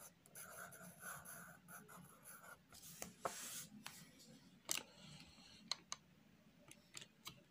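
Pencil scratching on workbook paper as a word is written in joined-up cursive letters, faint. A few short light clicks follow in the second half.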